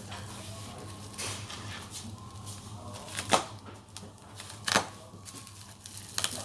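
A few sharp clicks or knocks, the two loudest a little past the middle, over a steady low hum.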